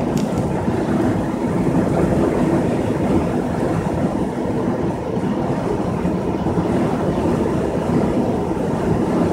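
Steady road and engine noise heard inside a vehicle's cab at highway speed, a constant low rumble with no distinct events.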